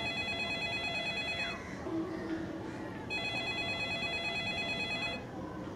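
Phone ringing with an electronic trilling ring tone: two rings of about two seconds each, with a pause of about a second and a half between them.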